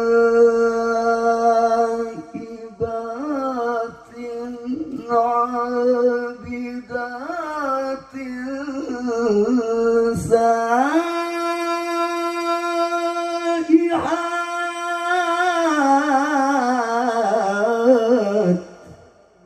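A man's melodic Quran recitation (tilawah) through a microphone and PA sound system: long held, ornamented notes, climbing about halfway through to a high note held for several seconds, then winding down in a wavering, falling phrase that stops shortly before the end.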